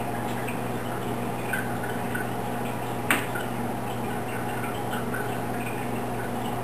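Pen drawing on paper on a clipboard: faint short scratching strokes over a steady background hum, with one sharp click about three seconds in.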